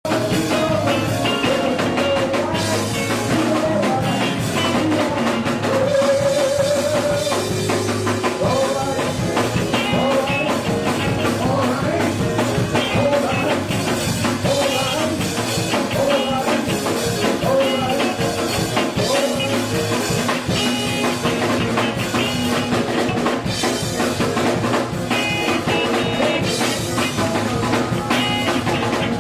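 Band music with a drum kit keeping a steady beat and pitched melody lines over it.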